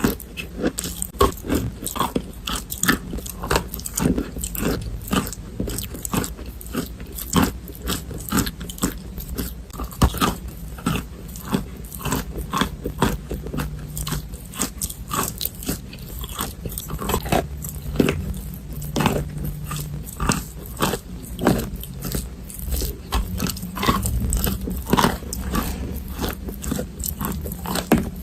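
Chalk being bitten and chewed, a dense, irregular run of sharp crunches several times a second.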